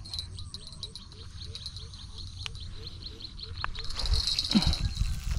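Outdoor animal chorus: high insects chirring steadily and a short low call repeated about three times a second. A louder rustling, handling-like noise comes in near the end.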